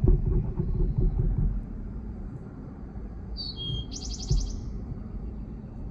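A songbird calls once about three and a half seconds in: a short high falling note, then a quick rapid trill lasting about half a second. A low rumble sits underneath, loudest in the first second and a half.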